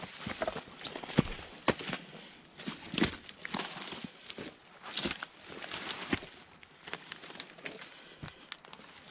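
Footsteps on a rocky, leaf-strewn trail: irregular steps and scuffs on loose stones and dry litter, with brush rustling against the walker.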